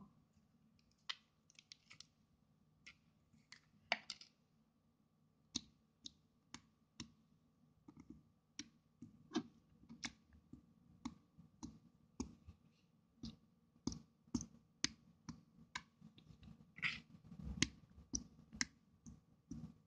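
Fingers poking and pressing soft slime, giving a run of faint, sharp clicks that come sparsely at first and then about twice a second in the second half.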